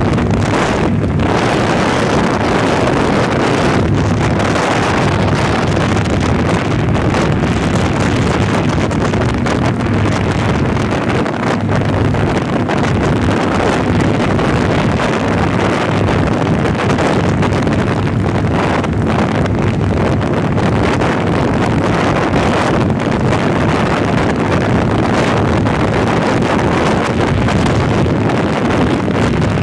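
Wind rushing over the microphone of a moving motorcycle, with the engine running steadily underneath at cruising speed.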